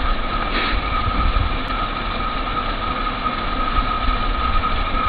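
Heavy six-wheel log truck's engine running steadily: a low rumble with a steady high-pitched tone over it.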